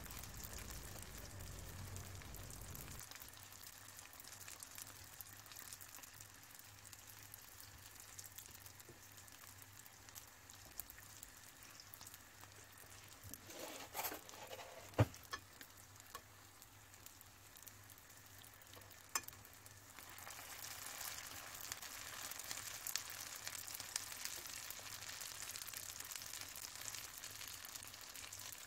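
Oil sizzling faintly as triangular pastilla-leaf briouats shallow-fry in a frying pan, with a few sharp clicks about halfway through. The sizzle grows louder over the last third.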